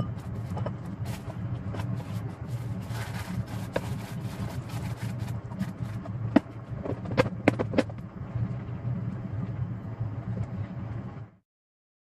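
Hands rustling kitchen paper and handling a plastic food storage box, with scattered light knocks and a cluster of sharp clicks about six to eight seconds in as the lid is fitted, over a steady low hum. The sound cuts off just before the end.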